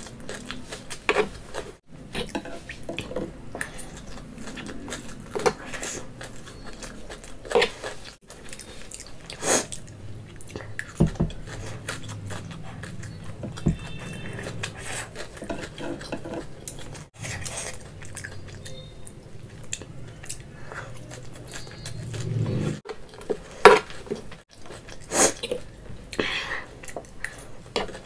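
Cutlery clinking and scraping against a plate at irregular intervals while noodles are eaten, with chewing in between.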